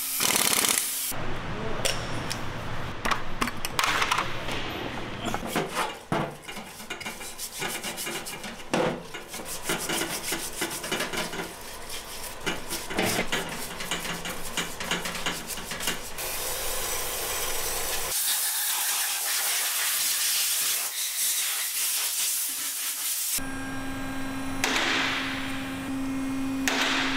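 Workshop work sounds: an impact wrench briefly runs in flywheel bolts at the start, followed by clicking, scraping and clinking of tools and metal parts, then a hiss while a part is scrubbed and rinsed in a parts washer. A steady low hum sets in near the end.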